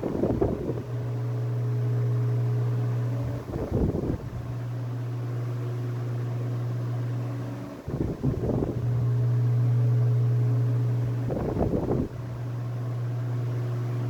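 Arno Super electric table fan running: its motor gives a steady hum, and four times, about every four seconds, a short rough burst of noise breaks over it.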